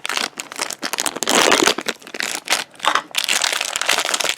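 Small plastic toy bag crinkling and rustling in irregular bursts as it is handled and pulled open by hand.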